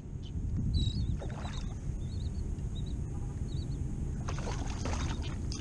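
Low rumble of wind on the microphone and water against a fishing kayak's hull, with a few faint, short high chirps in the first few seconds.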